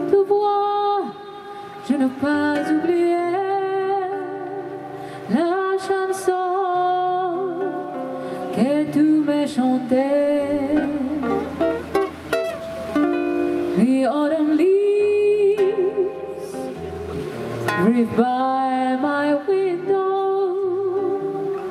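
A woman singing a jazz song into a microphone over a small live band, amplified through PA speakers, with vibrato on her long held notes and a steady bass line underneath.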